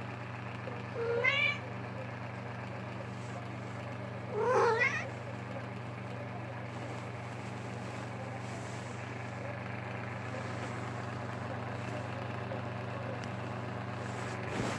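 A cat meowing twice, each meow a short call rising in pitch, about a second in and again about four and a half seconds in, over a steady low hum.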